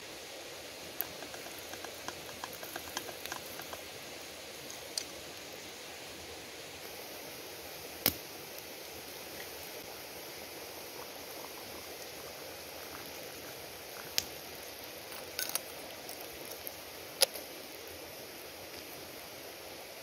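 Wood fire crackling, with a run of small crackles in the first few seconds and single sharp pops at intervals after. About halfway through, water is poured from a brass kettle into a small teapot.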